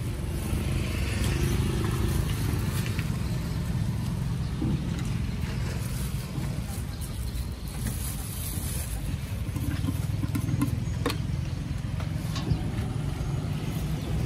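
Steady low rumble of a motor vehicle engine running nearby, with plastic bags crinkling and light clicks as cut fruit is bagged.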